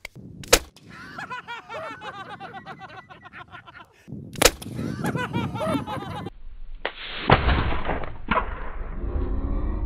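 Faint voices with a couple of sharp clicks. Then, about seven seconds in, a homemade potato cannon fires: a dull blast with rushing noise that lasts a couple of seconds, and a second sharp crack about a second after it.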